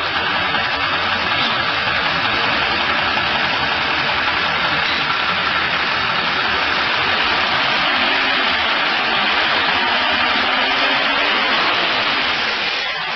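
A 1974 Toyota FJ40's straight-six engine, fitted with tubular headers, running steadily at idle on an engine stand. The sound is loud and even, with no revving.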